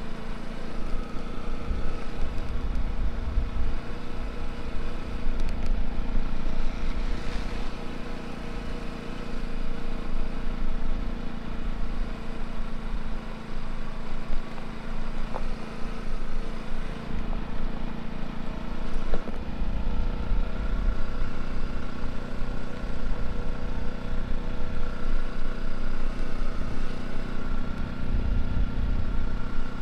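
Bajaj Pulsar NS200's single-cylinder engine running steadily, with a low rumble swelling now and then.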